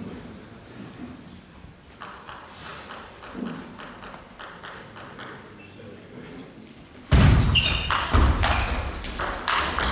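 A table tennis ball clicking sharply against bat and table through a serve and rally. About seven seconds in, loud voices and shouting break out suddenly over the ball strikes.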